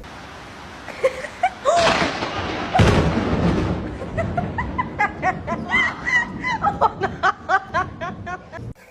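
A person laughing in a quick run of short high-pitched bursts, about four or five a second, after two loud noisy bursts about two and three seconds in.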